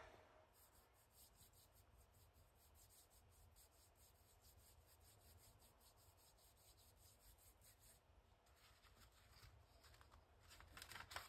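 Near silence: faint room tone, with faint handling of paper near the end.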